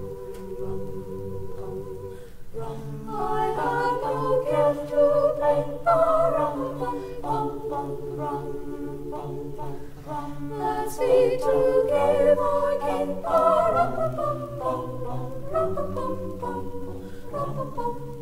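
Mixed high-school choir singing a cappella in several voice parts, the upper voices moving over held low notes and swelling louder a few times.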